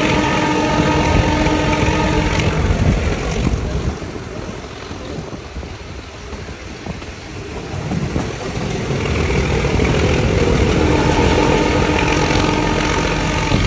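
The Nilgiri toy train running with a steady rumble. A steady pitched tone sounds over it for the first couple of seconds, and again from about nine seconds in.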